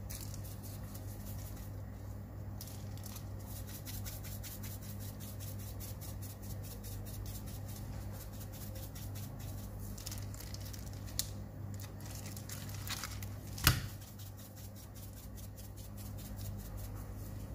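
Fish fillets being handled and seasoned in a glass dish: rapid faint ticking and rustling over a steady low hum, with a sharp click about fourteen seconds in.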